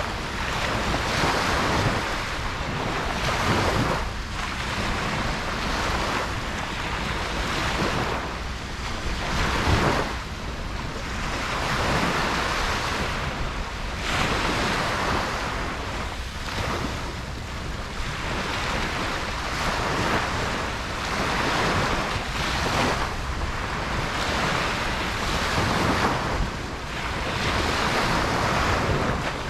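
Ocean waves breaking and washing up on a beach, a continuous surf hiss that swells and eases every few seconds, with wind buffeting the microphone.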